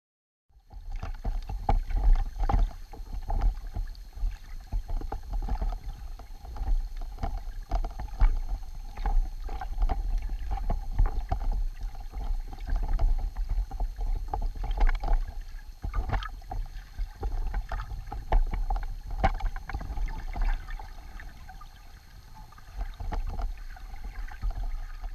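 Underwater sound from a submerged camera: a low rumble of moving water with a steady hum and frequent sharp clicks and crackles, starting about half a second in.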